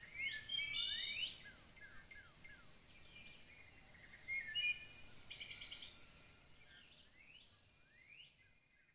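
Several songbirds singing in a forest: quick rising whistled sweeps, short falling chirps and a few buzzy repeated notes. The song is loudest about a second in and again around halfway, then fades toward the end.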